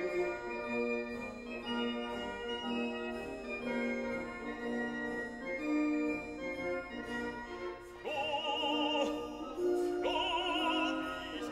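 Background classical music: a keyboard-like accompaniment of held chords, with an operatic singing voice with wide vibrato coming in about eight seconds in.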